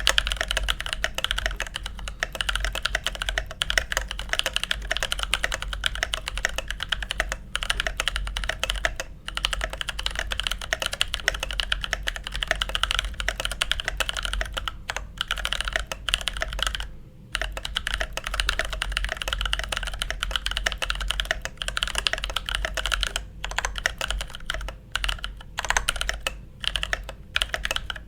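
Continuous fast typing on a Keychron K8 mechanical keyboard fitted with JWK Black T1 tactile (non-clicky) switches: a dense run of key clacks, broken by a few brief pauses.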